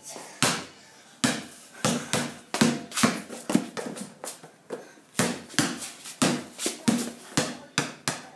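Basketball being dribbled on a concrete garage floor: repeated sharp bounces at an uneven pace, about two a second, some in quick pairs, after a brief pause near the start.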